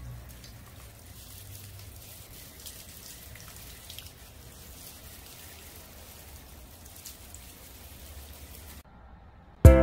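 Water spraying from a handheld shower-head nozzle onto the leaves of potted ficus plants: a faint, steady patter of drops on foliage and pots. The spray stops near the end.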